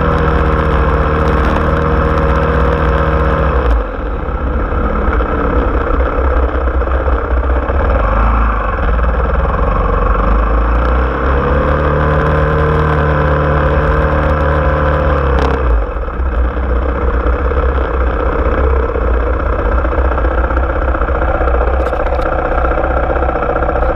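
Engine of a small vehicle running under way. It eases off about four seconds in, climbs in pitch and holds from about eight to fifteen seconds, then drops back and settles to a steady idle for the rest.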